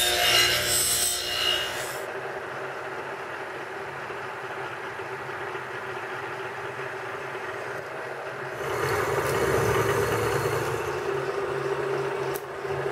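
Deburring wheel on a bench grinder working the edge of a steel bracket. From about two seconds in, a milling machine's end mill runs and cuts a pocket in the steel bracket with a steady hum, the cutting noise growing louder for a few seconds past the middle.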